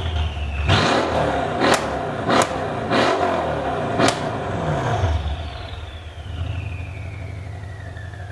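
Mercedes-Benz S 63 AMG's twin-turbo V8 with aftermarket exhaust manifolds, downpipes with sport catalytic converters and a valved exhaust, revved in short blips with four sharp exhaust cracks. About five seconds in, the revs drop and it settles to a steady idle while a high whine falls away.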